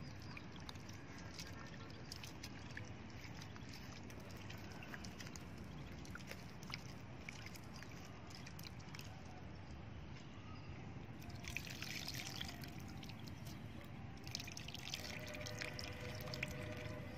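Hands working soaked tamarind in water in a steel bowl, the liquid dribbling and dripping. Near the end the tamarind water is poured into the pot of crab curry.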